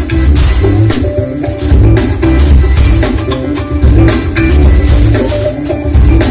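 Music played loud through a large outdoor stage PA system during a sound check, with heavy bass that pulses in a repeating pattern and a steady drum beat.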